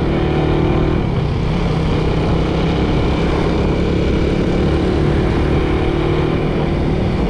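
Motorcycle engine running at a steady speed under a constant rush of wind noise.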